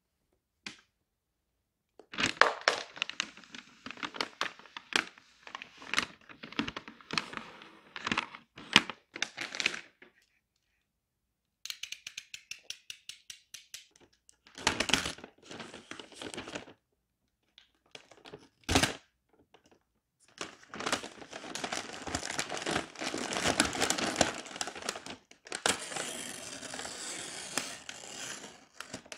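Brown kraft wrapping paper rustling, crinkling and tearing as a parcel is handled and cut open with a utility knife. Partway through comes a quick run of clicks as the knife's blade is slid out, later a single sharp knock, and near the end a long stretch of steady paper crinkling and tearing.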